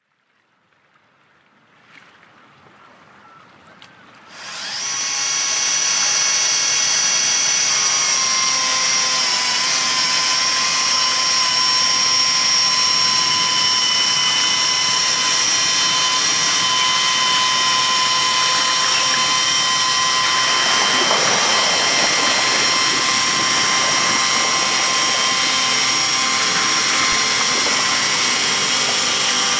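Electric-driven SNIK chainsaw mill sawing lengthwise through a birch log. After about four seconds of faint sound the saw comes up to speed, then runs steadily with a high whine as the chain cuts.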